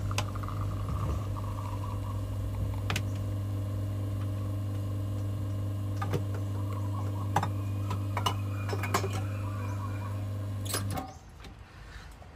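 Espresso machine pump humming steadily while a shot pours into a glass, cutting off abruptly about eleven seconds in as the shot is stopped. A few light clinks of glassware are heard over it.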